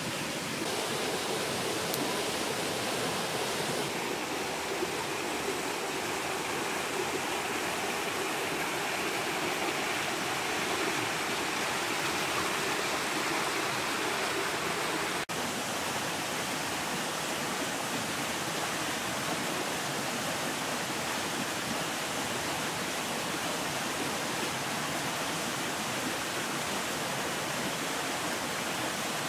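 Rushing water of a rocky stream, a steady, even rush.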